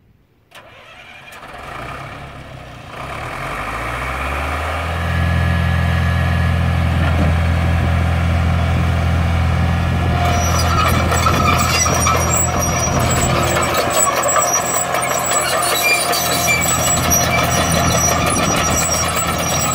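Caterpillar 943 track loader's diesel engine comes up from quiet over the first few seconds, then runs steadily under throttle. About halfway through, a clatter of steel tracks and high squeals joins in as the loader works and moves.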